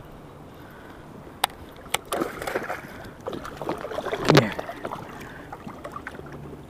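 A hooked largemouth bass thrashing and splashing at the surface in shallow water beside a rocky bank. Two sharp clicks come about a second and a half and two seconds in, and short wordless voice sounds come in between, the loudest a little past four seconds.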